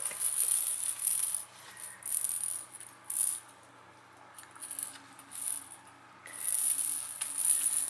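Clear plastic ball-in-ball toy rattling as it rolls and is pushed by a puppy, in four bursts with quiet gaps, the longest near the end.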